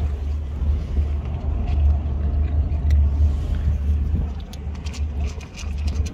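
Steady low rumble, with faint crisp clicks of cats crunching dry kibble, more of them near the end.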